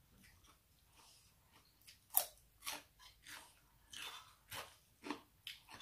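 Close crunchy chewing of raw vegetables, a crisp bite about two seconds in followed by steady chews at roughly two a second.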